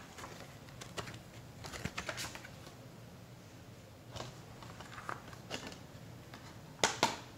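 Handling a plastic Blu-ray keep case and its paper booklet: papery rustles and scattered light clicks and taps, then two sharp clicks in quick succession near the end as the case snaps shut.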